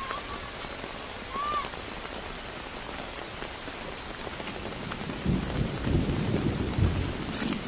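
Steady rain falling on flooded rice paddies. A short call sounds about a second and a half in, and a low rumble swells through the second half.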